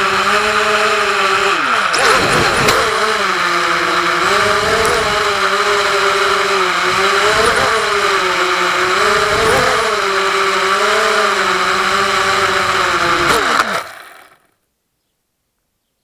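FPV drone's brushless motors and propellers whining with a hiss, the pitch rising and falling with the throttle. It dips briefly about two seconds in, then climbs back. About 14 seconds in the pitch drops and the sound cuts off to silence.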